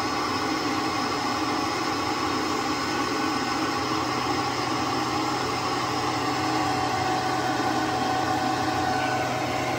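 SEAFLO 4-inch 12 V in-line marine bilge blower running steadily at full speed: an even rush of air with a hum and a few steady tones through it.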